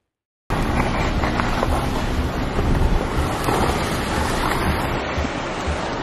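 Loud, steady rushing noise with irregular low rumbling thumps, beginning abruptly about half a second in: a car driving on a rough road, with wind blowing across the microphone.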